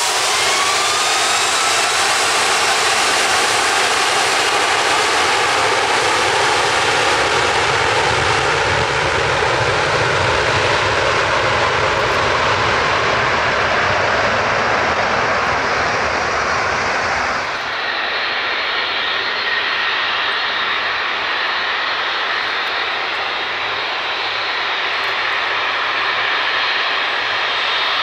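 Jet airliner's engines spooling up with a rising whine, then running at take-off power as a loud, steady rush. About two-thirds of the way through, the sound changes abruptly to a quieter, steady jet whine with high tones.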